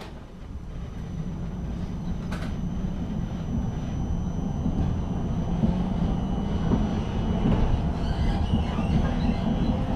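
Tram heard from inside the passenger car as it pulls away and gathers speed. Its running noise grows steadily louder, under a steady high whine, and a rising motor whine comes in near the end.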